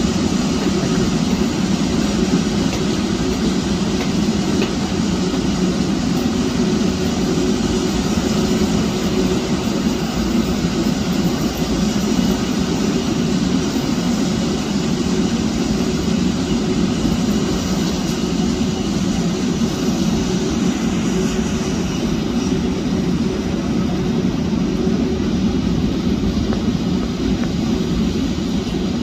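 Jet engines of a wide-body twin-jet airliner at takeoff power: a steady, loud, low roar that does not rise or fall.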